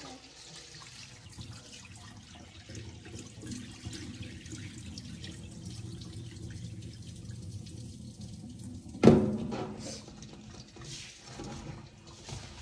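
Tap water running and splashing into a steel basin as hands rub and swish raw sticky rice to rinse it. About nine seconds in comes one loud metallic clank with a short ringing tail, the basin knocking against the sink.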